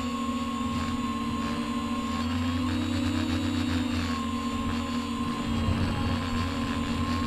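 Hexacopter-style multirotor drone motors (Avroto 770kv) spinning HQ 10x6x3 three-blade props in a hover, heard through the onboard flight camera's microphone as a steady whining hum. Its pitch shifts briefly a few seconds in.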